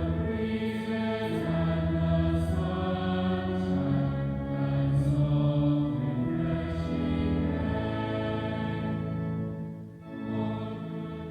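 Slow choral music: voices singing long held notes that change every second or two, dipping briefly near the end.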